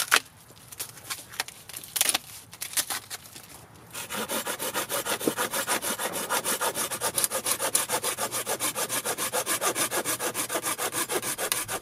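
A few sharp cracks and rustles as bark is pulled off a hardwood branch by hand. Then, from about four seconds in, a small Silky pull saw cuts into the branch in fast, even strokes, about five or six a second.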